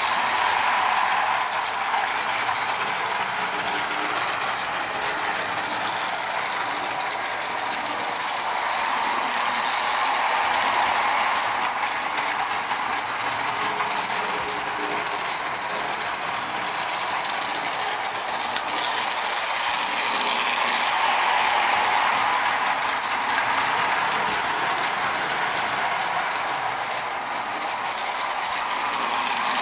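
Marx O-27 tinplate streamlined toy train running on three-rail track: a steady clattering whir of the locomotive's geared motor and its wheels on the tin rails. It swells and eases about every ten seconds as the train comes round close and moves away.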